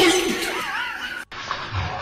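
A person bursts into sudden laughter as a cat leaps away from a cucumber. The sound cuts off abruptly about a second and a quarter in.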